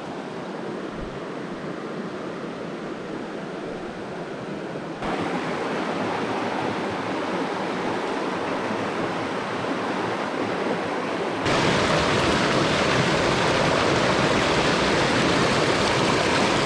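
Rushing water of a mountain creek running high, a steady rush that jumps abruptly louder twice, about 5 and 11 seconds in.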